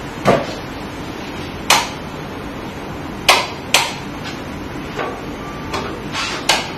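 A wall light switch being handled: about six sharp clicks and knocks at irregular intervals over a steady background hiss.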